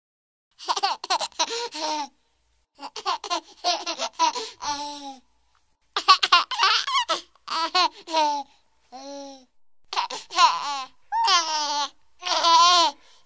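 A baby laughing in repeated bursts of high-pitched giggles, with short pauses between them. It starts about half a second in.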